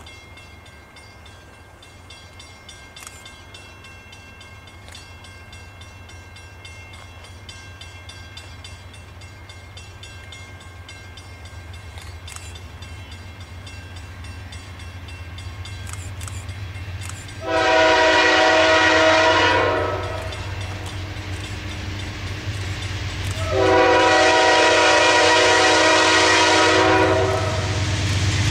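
Approaching freight train's diesel locomotives, a low engine rumble growing steadily louder as they near. The lead locomotive's multi-chime air horn sounds two long blasts, the second longer, and a third begins at the very end.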